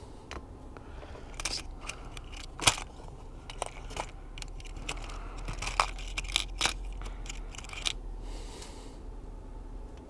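Small metal crimp rings and a plastic hose-barb fitting being handled: a scatter of light clicks and taps, the sharpest near three seconds in and several more between about six and eight seconds.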